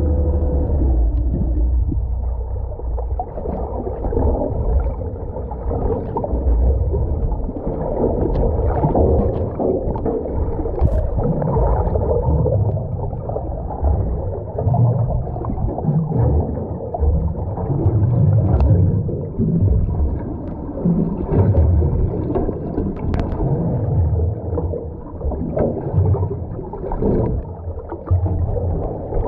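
Muffled underwater sound picked up by a camera below the surface: an uneven low wash of water noise with swells and gurgles, cut off above the middle range.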